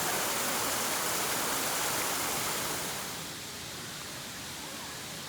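A steady rushing hiss that drops noticeably in level about three seconds in.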